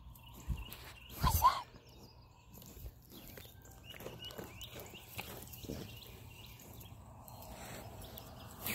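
Sheep right at the microphone: one short, loud vocal sound about a second in, then soft scattered clicks and rustles.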